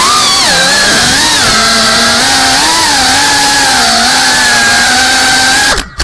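GEPRC Cinelog 35 FPV drone's brushless motors and propellers buzzing loudly as heard from the onboard camera, the pitch rising and falling with the throttle. Near the end the buzz cuts off suddenly with a short knock as the drone crashes into the ground.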